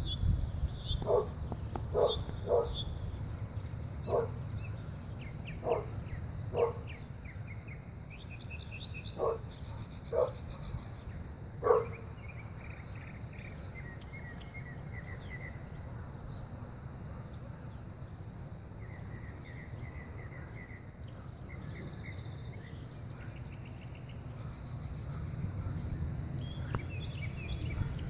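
A dog barking, about nine single barks spaced irregularly over the first twelve seconds, with birds chirping in short quick runs throughout over a steady low rumble.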